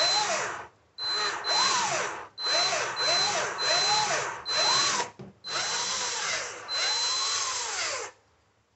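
Black+Decker 20V cordless drill boring a pilot hole with a small bit through a metal mirror rail into the wall, run in about eight short trigger pulses, its motor whine rising and falling in pitch with each squeeze. It stops about eight seconds in.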